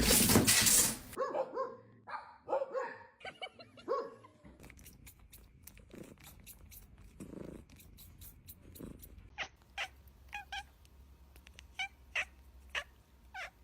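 A cat purring and giving short meows and chirps, after a loud rushing noise that cuts off about a second in.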